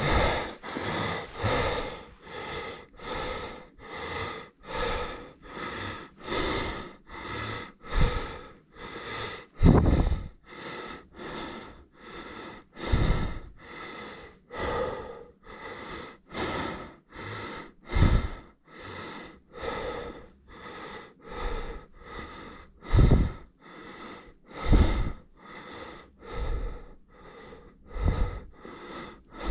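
A cyclist's heavy, rhythmic breathing close to the microphone, about one breath a second, from the effort of riding a fat bike through snow; several breaths come out louder, puffing on the microphone.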